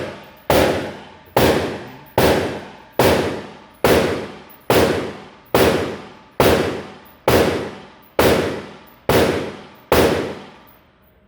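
About a dozen evenly spaced ringing metallic strikes, a little under one a second, each dying away before the next.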